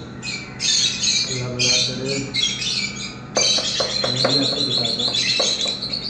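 Caged small parrots, lovebirds among them, squawking in short harsh bursts, with a fast run of calls about three and a half seconds in and a few light clicks.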